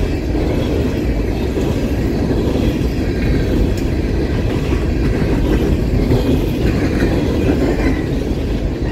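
A train passing, its cars rolling by on the track with a steady, loud noise that sits mostly low in pitch.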